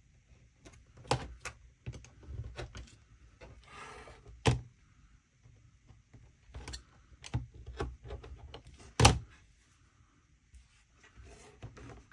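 Sewing tools and fabric scraps handled on a work table: scattered clicks and knocks, the loudest about a second in, four and a half seconds in and nine seconds in, with a short rustle around four seconds.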